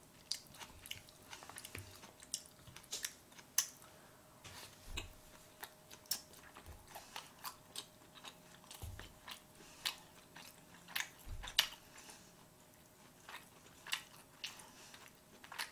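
A person chewing sushi close to the microphone: soft, irregular wet mouth clicks and smacks, with a few low thuds.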